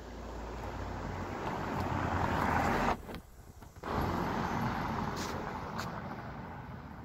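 A steady rushing noise that swells for about three seconds, breaks off suddenly for nearly a second, then returns and slowly fades.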